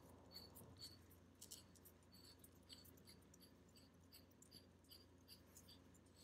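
Near silence: room tone with faint light ticks, about two or three a second.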